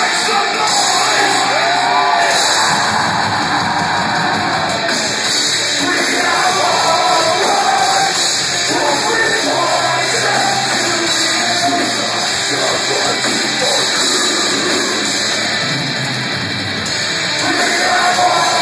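Metalcore band playing live: loud, dense distorted guitars and drums with vocals, in a hall.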